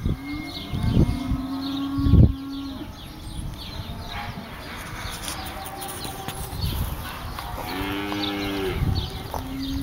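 Cattle mooing: one long, low, steady moo in the first couple of seconds, and a shorter, fuller moo near the end. A couple of dull knocks, about one and two seconds in, are the loudest sounds.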